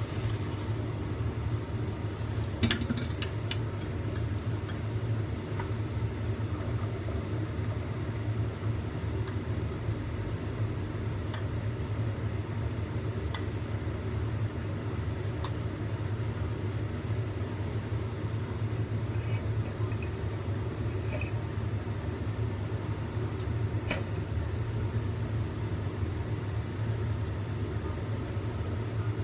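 Steady low rumble, with a single metallic clank about two and a half seconds in as a wok is set down on the gas stove's burner grate, then a few light clinks.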